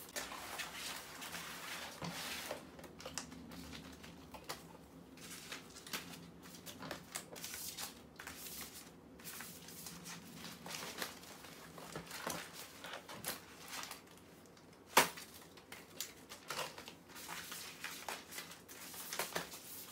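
Clear plastic binder sleeves and pouched slogans being handled and turned: irregular rustling and crinkling with light taps, and one sharper click about three-quarters of the way through.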